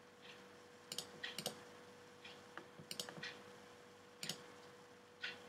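Faint computer mouse clicks, single and in quick pairs, as items are picked from a drop-down menu. Behind them is a light tick about once a second and a faint steady hum.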